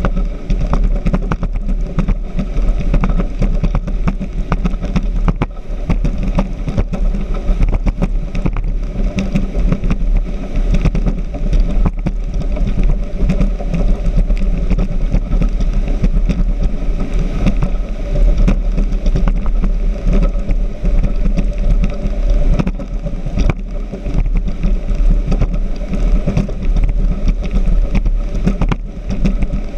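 Speedboat running fast on open water: a loud, steady engine rumble under rushing wind and water, with frequent short knocks and buffets.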